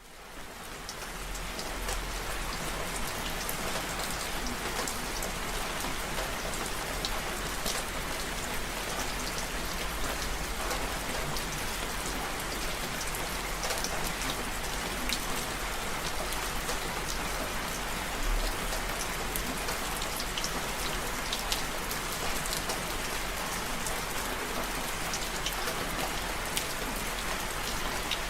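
Steady rain falling on a surface, with many individual drops ticking sharply through the hiss. It fades in over the first couple of seconds, then holds even.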